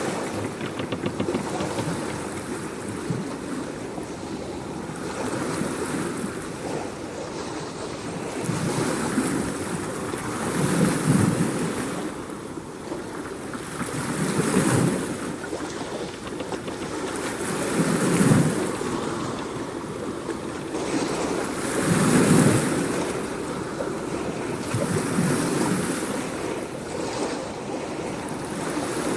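Ocean surf: waves washing in over a steady rush of noise, swelling about every three to four seconds.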